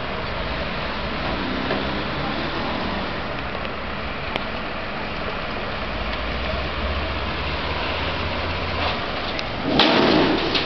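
Steady outdoor vehicle and engine noise, with a low engine hum from about six to nine seconds in and a short, loud rush of noise near the end.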